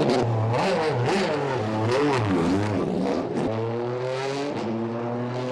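BMW M3's 4.0-litre V8 revving: several quick rises and falls in pitch over the first few seconds, then held at a steady, slowly climbing pitch.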